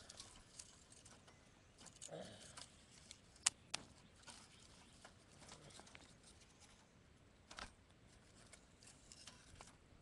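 Small wood fire under a cooking pot, crackling faintly with scattered sharp pops; the loudest pop comes about three and a half seconds in.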